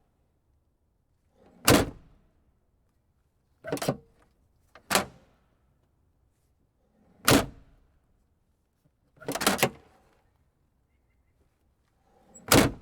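Car trunk lid being worked repeatedly: about six separate thunks of the lid and latch, a second or more apart, some with a quick latch clack just before the hit.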